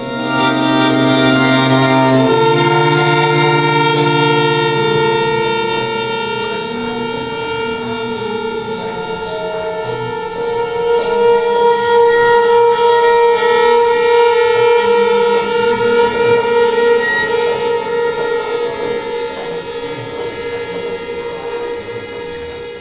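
String quartet (two violins, viola and cello) playing long held chords, shifting to a new chord about two seconds in. The sound swells again around ten seconds over a high held note, then gradually fades toward the end.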